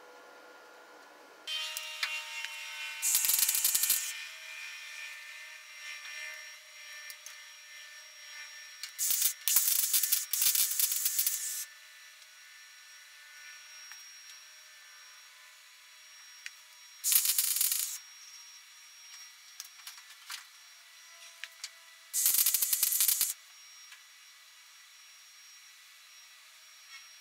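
MIG welder tack-welding a sheet-steel patch panel into place: four short bursts of crackling arc, each about a second long, a few seconds apart, with a steady hum between them.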